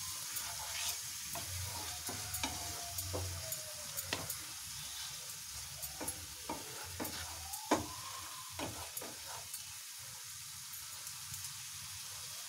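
Masala of onion, tomato, ginger-garlic paste and ground spices sizzling in oil in a frying pan, with a wooden spatula scraping and tapping against the pan at an irregular pace as it is stirred.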